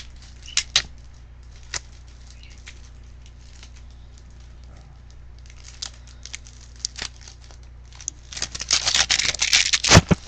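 A Yu-Gi-Oh! card deck and its packaging being handled: a few scattered light clicks and taps, then about two seconds of dense rustling and crackling near the end, finishing with a sharp knock.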